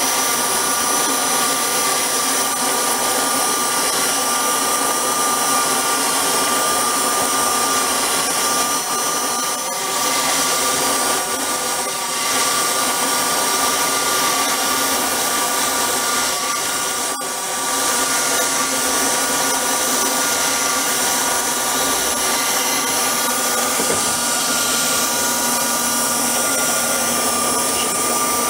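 Drive of a home-built scale model CAT D6 crawler running: the motor and roller-chain drive turning the machined aluminium tracks, a steady mechanical whine that holds its pitch, dipping briefly a few times.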